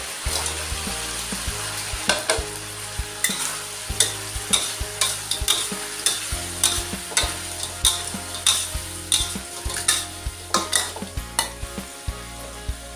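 Stir-frying in a hot pan: oil sizzling steadily while a spatula scrapes and knocks against the pan many times, busiest from about two seconds in until near the end.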